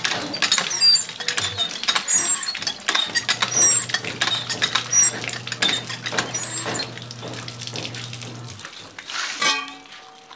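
Water from a hose splattering onto a wet concrete floor and over pigeons bathing in the stream, with short high chirps throughout. A faint low hum runs through the middle, and the splashing drops away near the end.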